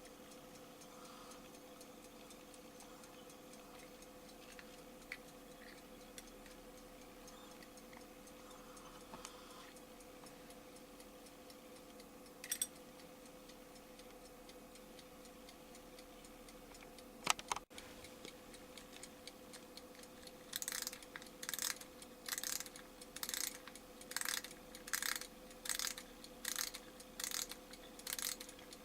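Bradley alarm clock's mechanism: a few soft clicks over a faint steady hum, a sharper click about 17 seconds in, then, from about 20 seconds in, a run of regular sharp bursts of clicking or rattling, about one and a half a second.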